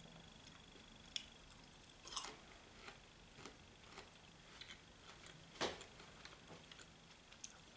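Faint scattered clicks and small knocks of someone eating, over a quiet room; the loudest comes just past the middle.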